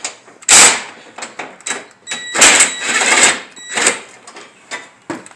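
Hand tool and loose steel bolts clicking and clinking as headlight mounting bolts are taken out, with a few loud clanks and a brief metallic ring from about two seconds in.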